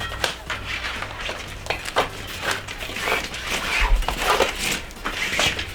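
Irregular clicks, scuffs and rubbery rustles of hands working bicycle tyres and inner tubes off the wheel rims.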